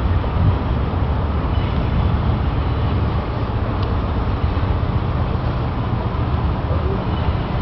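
Steady low rumble of road traffic, heaviest in the bass, with no distinct events standing out.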